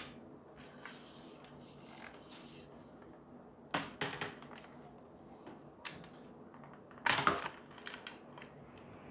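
T5 LED batten light fixture being handled: its long housing rubs and scrapes, then knocks and clicks several times against the table and fingers. The loudest knocks come in a cluster about seven seconds in.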